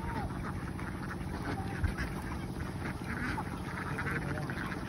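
A large flock of domestic ducks quacking and chattering continuously as they feed, many short overlapping calls at once.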